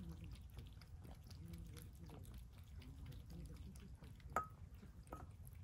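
Cats chewing wet cat food out of bowls, with many small, soft clicking and smacking sounds. A sharp, briefly ringing clink about four seconds in, and a fainter one under a second later, as a bowl is knocked.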